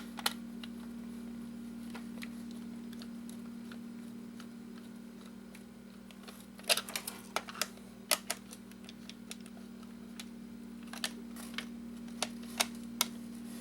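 Scattered sharp clicks and light knocks of small hard parts being handled, in a cluster about six to eight seconds in and another near the end, over a steady low electrical hum.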